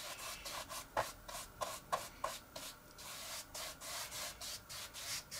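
Paintbrush laying a second coat of emulsion paint onto a model aircraft wing in light strokes: soft, repeated brushing rubs, with a few light taps between about one and two seconds in.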